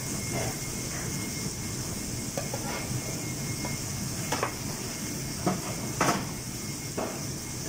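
Burger patties sizzling on a flat-top griddle as a steady hiss over a low kitchen rumble, with several sharp clanks of metal utensils against the steel trays, the loudest about six seconds in.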